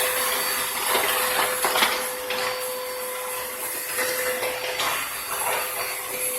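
Vacuum cleaner running steadily, a constant hiss with a steady whine, broken by a few brief knocks or rattles.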